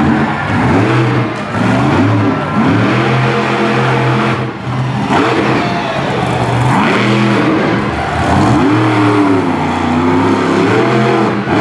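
Monster truck's big-block V8 engine revving hard. It surges up and drops back again and again, every second or two, as the throttle is worked through the run.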